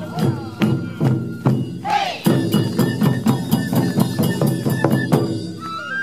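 Japanese taiko ensemble playing: rope-tensioned okedo barrel drums struck in a steady fast beat, with shinobue bamboo flutes playing a melody over them that comes through more strongly about two seconds in.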